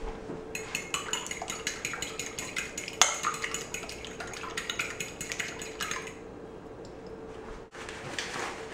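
Fork beating two raw eggs in a glass bowl: rapid clinks of the fork against the glass for about five seconds, one harder tap midway, then it stops. Near the end a paper flour bag rustles as it is picked up.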